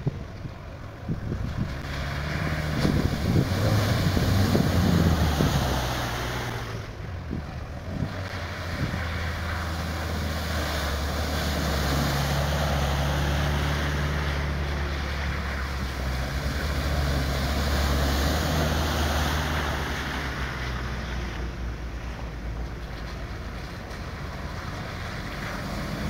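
Land Rover 4x4 engine running under load at low speed on a trail, its pitch slowly rising and falling as it pulls, with heavy wind noise on the microphone.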